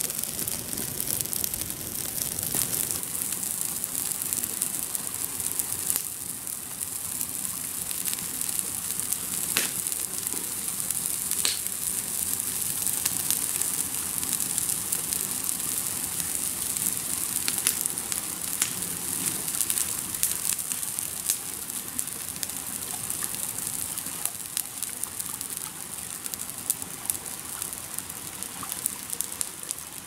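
Campfire crackling: scattered sharp pops over a steady high hiss.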